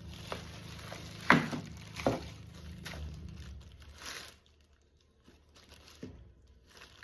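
Plastic packaging crinkling and rustling with several sharp knocks as an appliance and its parts are unpacked, the loudest knock about a second in. A steady low hum runs underneath and stops about halfway through.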